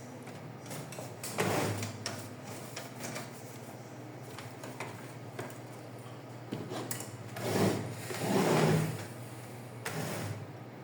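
Plastic housing and parts of an HP LaserJet M1132 printer being handled and fitted closed by hand, giving a few rubbing, clattering knocks, the loudest pair near the end. A faint steady low hum runs underneath.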